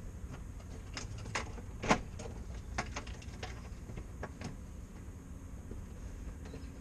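A front door being opened as they go indoors: a scatter of sharp clicks and knocks, the loudest about two seconds in, over a low steady rumble.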